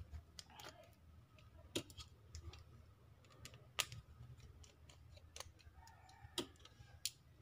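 Faint, irregular small clicks and taps of a screwdriver and small tools working on the opened phone's frame while its small screws are removed.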